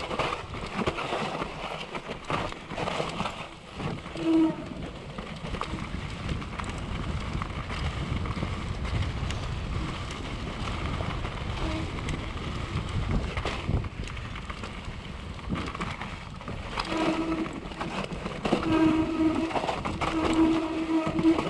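Downhill mountain bike descending a rough dirt trail at speed: tyres rumbling over dirt, roots and rocks, with the chain and frame rattling and knocking on the bumps and wind on the microphone. A pitched buzzing tone comes in briefly a few seconds in and again several times near the end.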